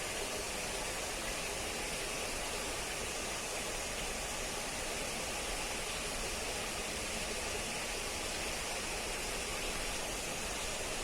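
Water running steadily, a continuous even rush with no breaks.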